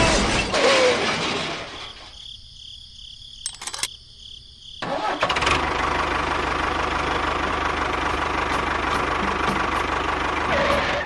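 A small motor or engine running steadily. It comes in sharply about five seconds in, after a quieter stretch, and holds an even level with a faint steady whine.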